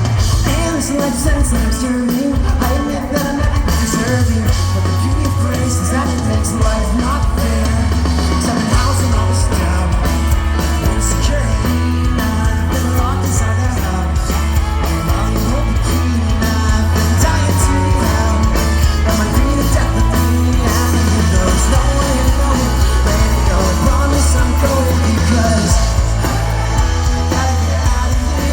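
Pop-punk band playing live through a PA: distorted electric guitars, bass and drums, with a lead singer's vocal, loud and continuous.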